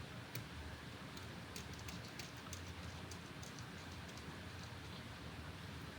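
Faint, irregular small clicks and taps of hand work as a replacement sensor is threaded into its metal bracket on a canning-line filler exit gate.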